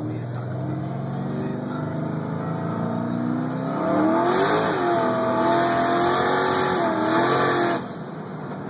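Twin-turbocharged Ford Mustang engine, heard from inside the cabin, running at part throttle, then revving up hard under full acceleration for about four seconds, with a hiss over the engine note while on boost. The engine note cuts off suddenly near the end as the throttle is lifted.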